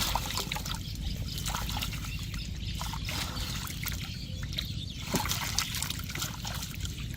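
Water trickling and splashing, with scattered small splashes and clicks over a steady low rumble.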